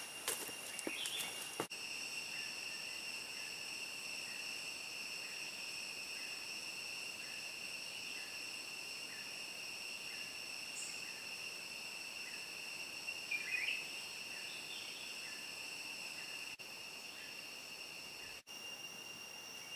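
Steady high-pitched drone of rainforest insects, several pitches held at once. A faint chirp repeats about every half second, and a short bird-like call comes about two-thirds of the way through. A few light footsteps or clicks are heard in the first couple of seconds.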